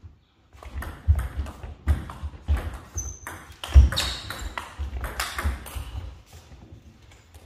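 Table tennis rally: the ball clicking off the bats and bouncing on the table in quick succession, several hits a second, mixed with low thuds. The rally starts about half a second in and stops near the end.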